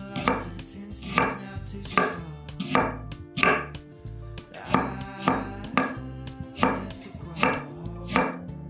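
Kitchen knife slicing on a wooden cutting board, an even, unhurried series of sharp knocks as the blade meets the board, about one every 0.7 seconds.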